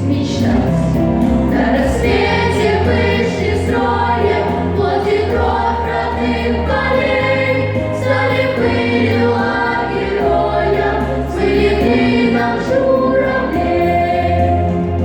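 A choir singing a song over instrumental backing with a steady low bass.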